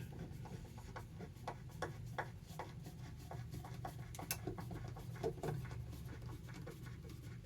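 Scattered light clicks, taps and rubbing of hands fitting an electrical box and its lid into place, over a faint steady low hum.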